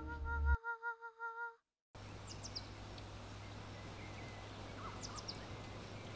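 A pulsing music track fades out in the first second and a half and cuts to silence. Outdoor ambience follows, with a steady low hum and two short clusters of bird chirps.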